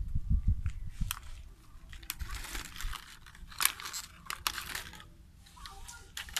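Plastic bottle crinkling and crunching in irregular crackles and clicks as a young macaque carries it and bites at it. A low rumble is heard in the first second.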